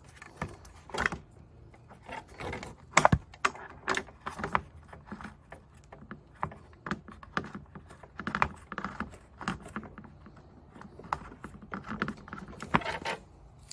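Irregular clicks, knocks and metallic clinks of a wheel bolt and hand tools being worked while threading the bolt through a replacement rear wheel on a Toro push mower, with one sharper knock about three seconds in.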